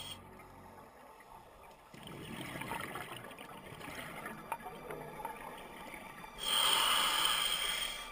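A scuba diver's regulator breathing underwater: a few seconds of bubbling exhaled air, then a louder hiss of inhalation through the regulator about six and a half seconds in, lasting about a second and a half.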